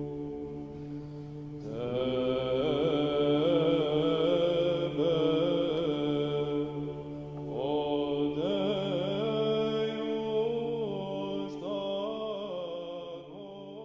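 Orthodox church chant: a steady low held drone with an ornamented melody sung over it. The melody comes in about two seconds in, breaks off briefly around the middle, then resumes and fades toward the end.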